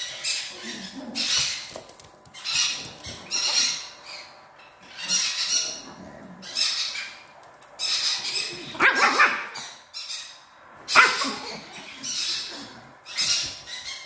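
Harsh animal calls repeated roughly once a second, each short and noisy, with longer, louder ones about nine and eleven seconds in.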